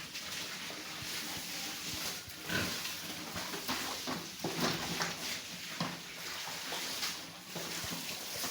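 Pigs grunting and squealing in short, irregular calls over a steady background hiss.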